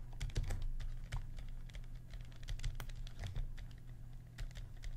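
Stylus tapping and scratching on a tablet screen during handwriting: a run of light, irregular clicks over a steady low hum.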